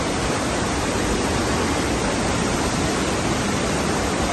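Floodwater surging and churning across a paved walkway: a steady rushing noise.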